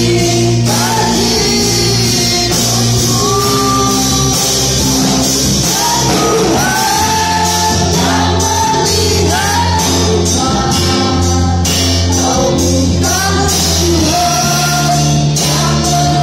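Live Christian worship music: singers over a band with a steady bass line and drums with cymbals, played loud through the PA.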